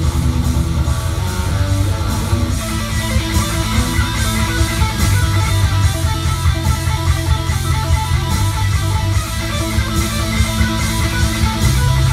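Electric guitar played through an amplifier: a fast riff of rapidly repeated low notes with higher melody notes over them.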